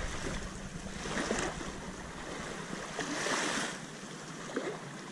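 Small waves lapping and washing in the shallows at the water's edge, swelling about three seconds in, with some wind rumbling on the microphone at the start.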